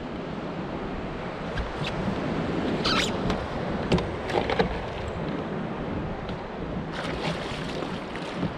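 Steady wind and water noise around a fishing kayak, with several short, sharp splashes as a hooked fish thrashes at the surface beside the hull.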